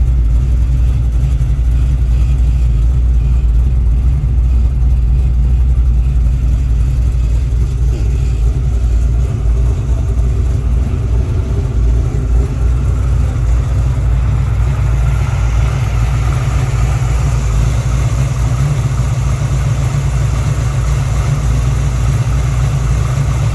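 Blue Print Engines 400 small-block Chevy V8 idling steadily through a Pypes 3-inch exhaust, a deep even rumble. From about fifteen seconds in, the sound turns brighter with more high-pitched mechanical and intake noise, heard at the open engine bay.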